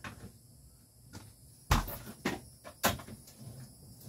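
A few sharp knocks and clunks of stored things being handled and shifted while rummaging. The loudest is a heavier knock a little under two seconds in.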